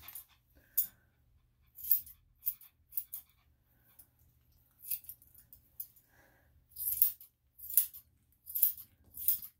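Grooming scissors snipping the hair on a dog's face: a series of short, crisp metallic snips at irregular intervals, sparse at first and coming about once a second and louder in the second half.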